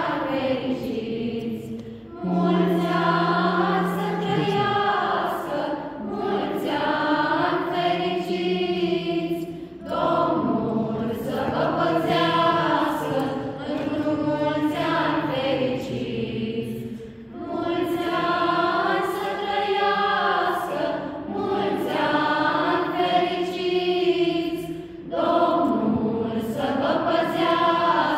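A choir of women and children singing a Romanian Christmas carol (colindă) without instruments, in long phrases with a short pause about every seven or eight seconds.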